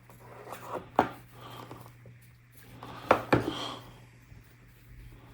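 Box packaging being handled by hand, with soft rubbing. There is a sharp knock about a second in and two more in quick succession just after three seconds.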